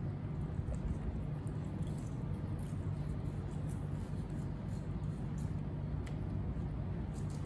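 Baby monkeys eating banana: faint small clicks and smacks of chewing over a steady low hum.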